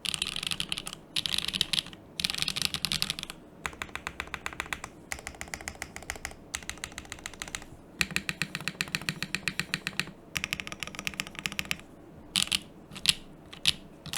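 Typing on an Mc65 mechanical keyboard, top-mounted with a polypropylene plate, no dampening, stock HMX KD200 switches and GMK ABS keycaps. Bursts of fast keystrokes, about ten a second, with short pauses, and a few single louder presses near the end.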